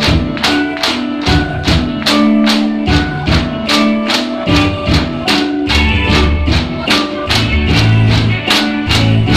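Music for the Mizo Cheraw bamboo dance: a steady clacking beat about two and a half times a second under held melody notes, with a deep bass coming in about six seconds in.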